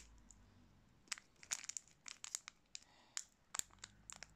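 Foil Pokemon booster pack wrapper crinkling in the hands, in scattered short crackles and a couple of small clusters.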